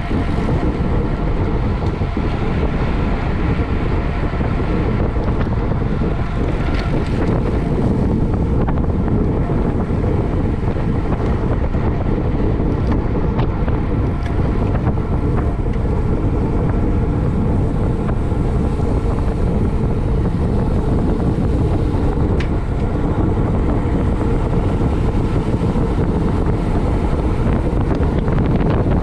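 Loud, steady wind rush on the microphone from a bicycle riding at race speed, with a faint steady hum underneath.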